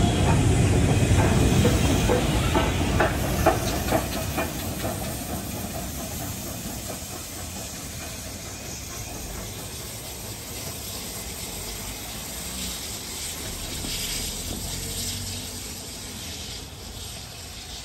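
Steam-hauled train crossing a level crossing and moving away. Wheels clack over the rail joints in the first few seconds, then the train fades to a steady hiss of steam.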